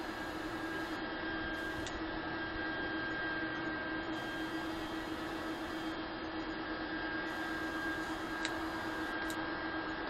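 Steady machine hum with a constant low tone and a faint higher whine, with a few faint ticks.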